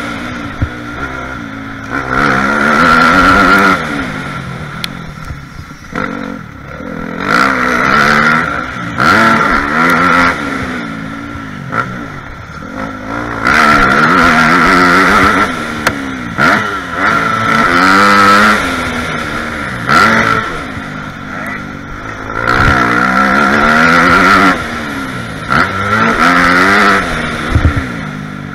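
Dirt bike engine heard from a helmet-mounted camera, revving up hard and backing off over and over as the rider accelerates out of corners and rolls off into the next, with a few sharp knocks in between.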